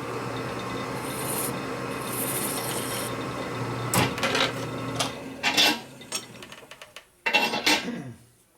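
Metal lathe running with a steady hum while a file rasps against the spinning workpiece, with a few knocks. The hum stops about six seconds in, followed by a brief clatter of the metal part being handled.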